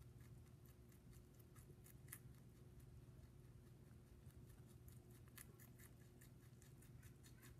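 Lop-eared rabbit chewing carrot greens: faint, quick, crisp crunches, several a second, over a low steady hum.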